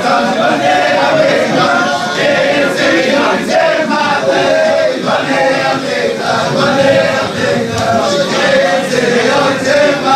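A large group of Hasidic men singing a melody together, many male voices carrying one tune at full voice.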